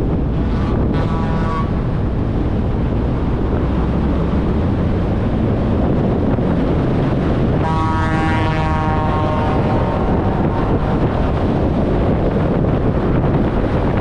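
Wind rushing over an external microphone on a 1994 VW Gol at highway speed, with steady road noise. A brief pitched whine rises out of it about a second in, and a longer one a little past halfway.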